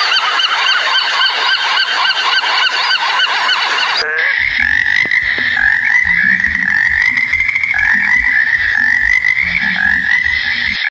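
Many rapid, overlapping honk-like bird calls for about four seconds. After a sudden cut, a tree frog calls in one continuous, wavering note, with a rapid low pulsing underneath.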